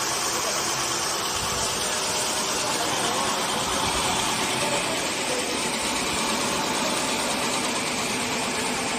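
Horizontal band sawmill running: a steady mechanical noise that holds an even level throughout, with a hiss over faint steady tones.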